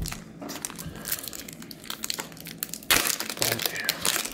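Foil trading-card pack crinkling in the hands and being torn open, with the loudest rip about three seconds in, followed by more crackling of the foil.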